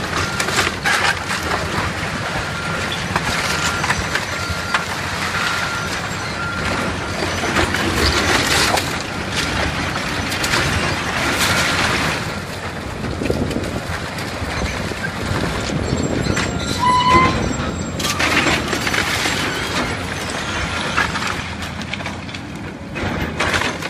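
A Caterpillar tracked excavator demolishing a brick-and-timber house: the machine runs under continual crashing, cracking and clattering as walls and timbers are pulled down and debris falls. A string of short, evenly spaced high beeps sounds over the first several seconds.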